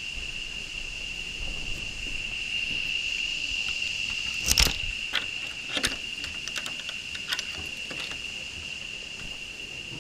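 Steady high-pitched insect drone, like crickets or cicadas, running on unchanged. About halfway through come a sharp knock, then a handful of smaller clicks and taps over the next few seconds.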